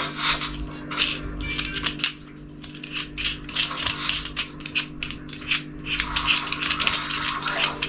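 Plastic clicks and ratcheting from a GoPro bike handlebar mount being loosened and adjusted by hand, scattered at first, then a fast run of clicks near the end.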